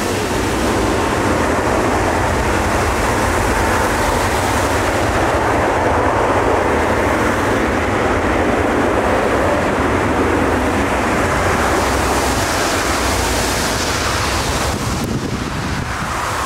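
Airbus A380 jet engines running loud during the landing rollout on a wet runway: a steady, deep rushing roar mixed with the hiss of spray thrown up by the wheels. It dips briefly near the end.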